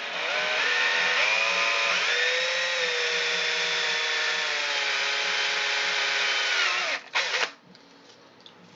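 Handheld power drill with a twist bit boring a hole through a small plastic model seat. The motor whine climbs in steps over the first two seconds and then holds steady. It stops about seven seconds in, followed by one short second burst.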